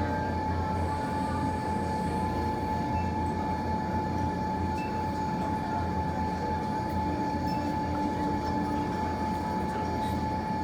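Steady low rumbling hum with a constant high whine over it, a continuous machine-like room noise with only a few faint ticks.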